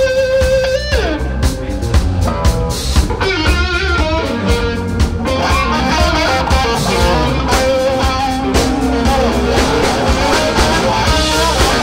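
Live blues-rock band playing: an electric guitar lead over bass guitar and drums, a long held note bending down about a second in, then fast runs.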